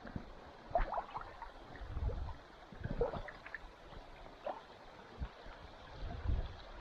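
Faint river water gurgling and lapping, in scattered short blips, with a few soft low bumps.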